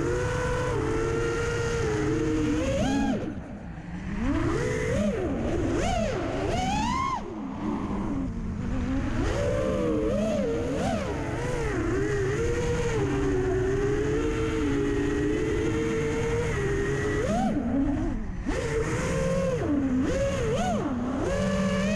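FPV racing quadcopter's brushless motors (T-Motor F80) whining, the pitch rising and falling steeply as the throttle is worked, with brief throttle drops a few seconds in and again about seven seconds in. A steady low rumble of wind on the microphone runs underneath.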